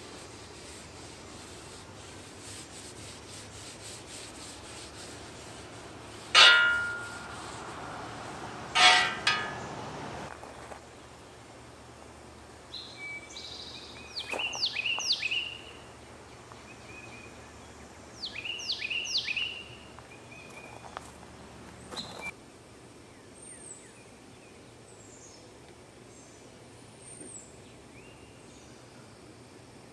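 Birds singing: runs of quick falling whistled notes in short series, then fainter high chirps later on. Two louder, brief sounds stand out about six and nine seconds in, over a steady outdoor background.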